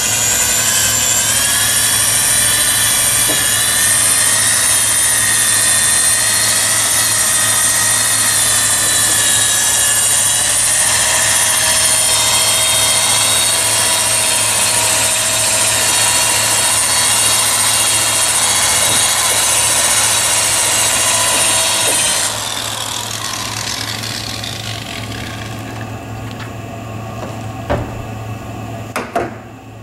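Corded DeWalt electric drill running steadily at medium speed, spinning a foam buffing pad against a plastic headlight lens to work in polishing compound. About two-thirds of the way through the motor winds down and stops, leaving a few faint knocks.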